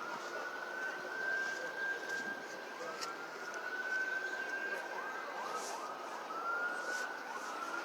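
Emergency-vehicle siren wailing, its pitch sweeping up and holding high again and again, over the steady hum of city traffic.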